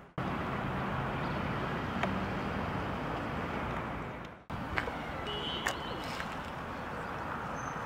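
Steady outdoor background noise. It drops out sharply twice, at the start and again about four and a half seconds in, where the footage is cut, and there are a few faint clicks.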